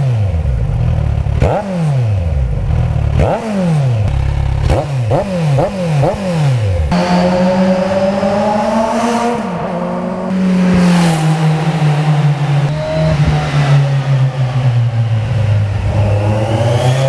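Kawasaki Z1000SX inline-four with aftermarket quad-outlet Toce exhausts, blipped hard several times while standing still. Each rev rises sharply and falls straight back, with a quick run of blips about five seconds in. About seven seconds in comes a continuous engine note that dips in pitch around ten seconds in and then sinks slowly.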